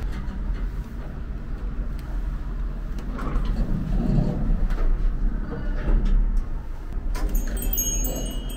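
Low steady rumble inside a moving elevator car, with a few faint clicks. About seven seconds in, as the car arrives and the doors open, a high-pitched electronic chime tune starts.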